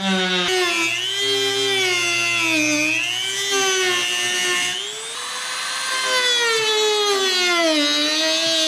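Dremel rotary tool with a small cut-off wheel cutting into a C7 Corvette's composite quarter panel: a high whine that sags and rises in pitch as the disc bites into the cut and frees up again.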